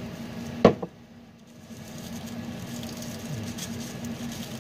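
Packaging being opened by hand: a sharp click with a smaller one right after, less than a second in, then faint rustling. A steady low hum runs underneath.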